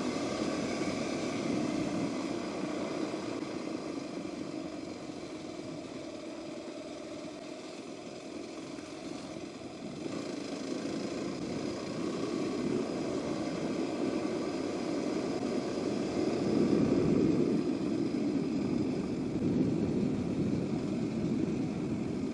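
Off-road motorcycle engine running steadily, getting louder from about ten seconds in and loudest around sixteen to eighteen seconds.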